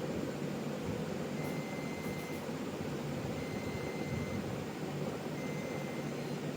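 A desktop PC's beeper sounding a high tone about a second long, repeating every two seconds or so (three beeps in all), over the steady whir of the computer's fans. The beeping is the warning of a computer still not fully repaired, the same problem returning.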